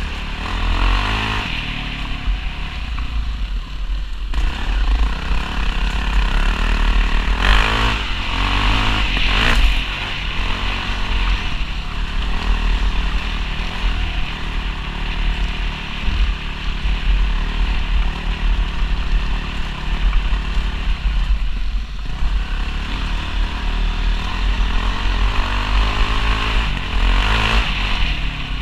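450-class single-cylinder four-stroke enduro bike engine running under way on a dirt trail, with the throttle rising and falling. It revs up harder twice, about a third of the way in and again near the end.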